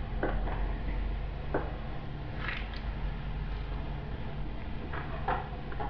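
Sliced onion dropped and spread by hand on a stainless steel baking tray: a few soft, scattered taps and squishes over a steady low hum.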